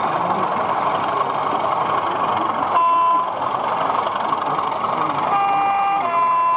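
Model locomotive horn through a small speaker: one short toot about three seconds in, then a two-tone horn near the end, a lower note followed by a higher one. Steady crowd hubbub runs underneath.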